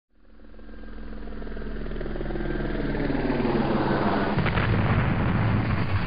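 A low rumble with a steady underlying hum, swelling up from silence over the first few seconds and staying loud.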